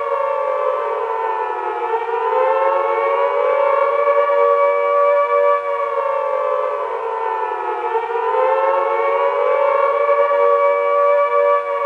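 Nuclear-attack civil defense siren wailing loudly. Its chord-like tone sags in pitch and climbs back about every six seconds, twice here.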